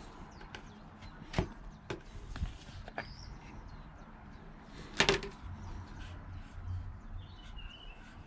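Unpacking of a Fiskars X5 camping axe, with its card sleeve and plastic handle handled as the axe is slid out: scattered clicks and knocks, the loudest a sharp one about five seconds in.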